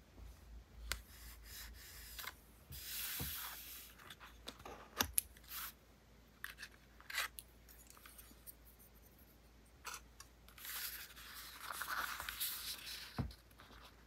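Paper and stickers being handled for diary decorating: scattered light clicks and taps, with two longer papery rustles. One is about three seconds in; the longer one comes from about ten and a half seconds in.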